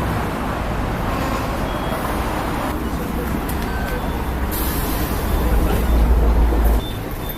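Busy street traffic: heavy vehicles such as buses and trucks running, with a deep low rumble that swells in the second half and drops off suddenly a little before the end. A few short beeps are heard.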